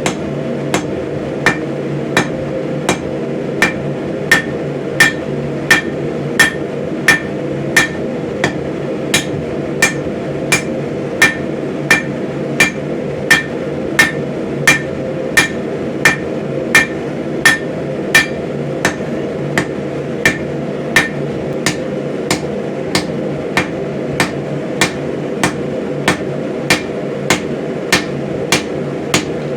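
Hand hammer striking a hatchet head on an anvil, an even rhythm of about three blows every two seconds, each blow with a short metallic ring. Under the blows is a steady low hum.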